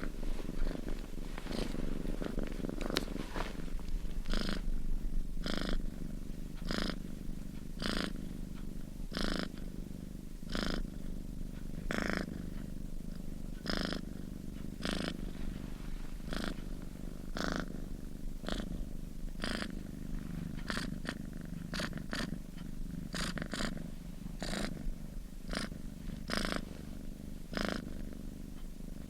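Sleeping cat snoring, a short breathy snore roughly every second over a low steady rumble.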